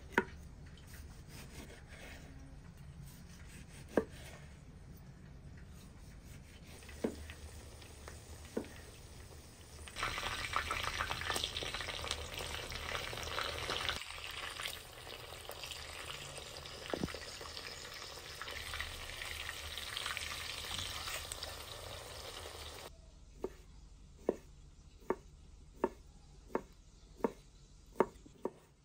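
A knife slicing through a tomato on a wooden board, with a few sharp taps of the blade. About ten seconds in, burger patties sizzle loudly as they fry in oil in a wide black pan. Near the end, the sizzle gives way to a knife chopping pickles on the board in quick, regular taps.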